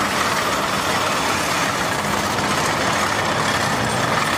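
Tank engine running, a steady, even rumble with a faint low hum, as heard in a sound effect.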